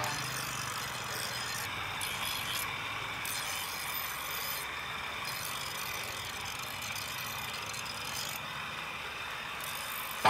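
Steel knife blade ground against a spinning belt-driven grinding wheel: a steady grinding hiss as the edge is sharpened.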